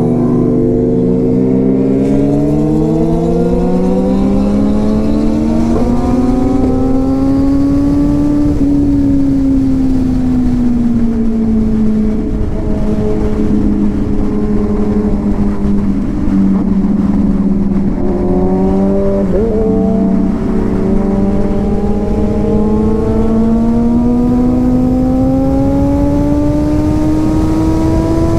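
Motorcycle engine running at road speed, its note climbing, easing off and climbing again as the throttle is worked, under a heavy rush of wind noise.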